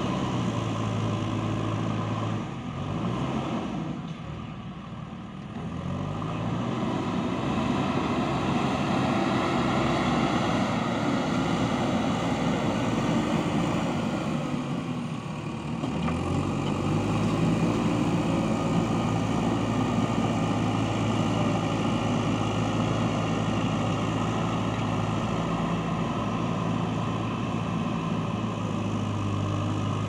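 JCB backhoe loader's diesel engine working as the front bucket pushes into and scoops soil. The engine note dips a few seconds in and again about halfway through, then revs back up and pulls steadily under load.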